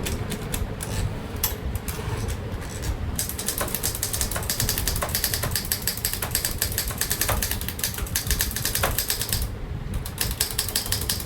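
Remington Travel-Riter portable manual typewriter with a Hindi (Devanagari) keyboard being typed on: a fast run of clacking key strikes. The strikes are sparse at first, then come thick and quick, with a brief pause about ten seconds in.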